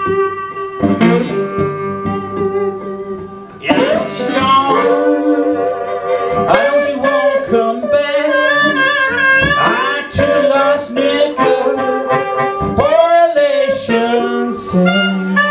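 Blues harmonica playing a solo with bent, sliding notes over a resonator guitar accompaniment.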